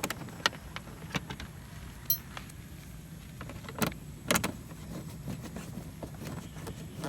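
Small metal clicks and clinks of an Allen key and bolts being handled while fitting bolts to a motorcycle. One short metallic ring about two seconds in, and a couple of louder knocks around four seconds in.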